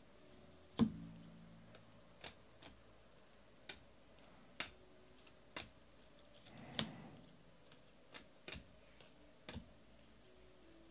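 Baseball trading cards being flipped through by hand, each card slid off the front of the stack and tucked behind with a light click, about one a second. The loudest click comes about a second in, and a longer rustling shuffle falls near the middle.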